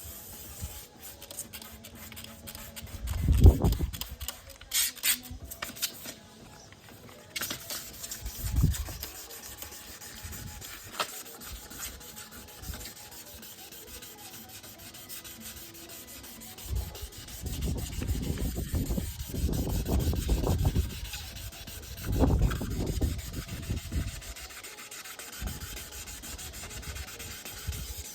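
Wet sanding of a plastic headlight lens with 800-grit abrasive and water: irregular rubbing strokes, louder in stretches, over a steady hiss.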